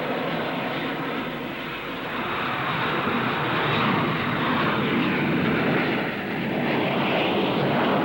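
Jet aircraft engine running steadily, its sound swelling and easing, with brief dips about two and six seconds in.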